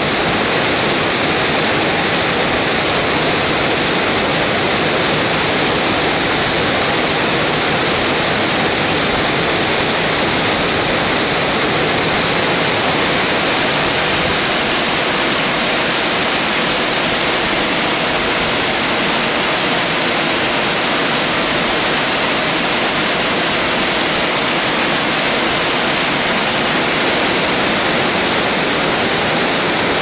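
Multi-tiered mountain waterfall pouring over rock ledges, a steady, even rush of falling water.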